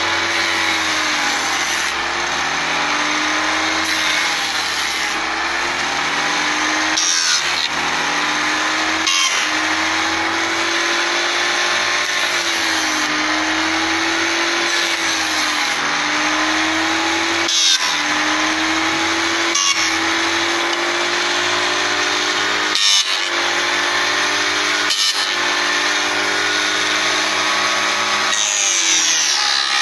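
Small electric frame-making machine for Langstroth beehive frames running steadily as wooden frame bars are fed through its cutter. The motor's pitch dips and recovers repeatedly as it takes the load, with several short, sharp cutting noises along the way.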